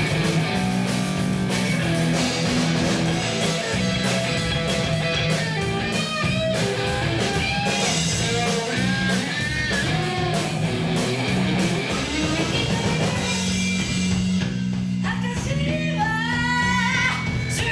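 Rock band playing live: electric guitar over bass and drums, with singing. The drum beat thins out near the end.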